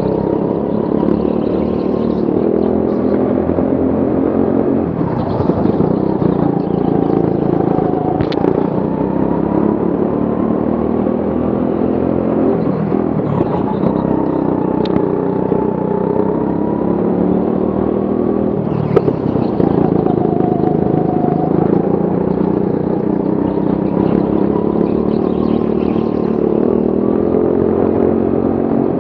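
Go-kart engine running under the driver, its revs rising and falling through the corners, with other karts' engines close by. A few short, sharp knocks cut through, the loudest about 19 seconds in.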